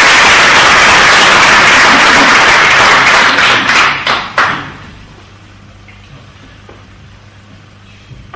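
Theatre audience applauding after a recited poem, dying away about four seconds in with a few last scattered claps. Then a quiet hall with a faint low hum.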